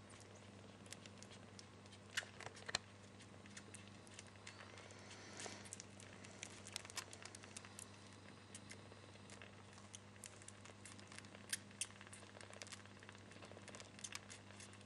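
Kittens nursing from their mother: faint scattered clicks and rustles, with a few sharper ticks, over a steady low hum.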